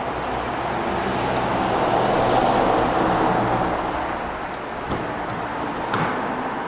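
Car engine running steadily, growing louder toward the middle and easing off again, with two sharp clicks near the end.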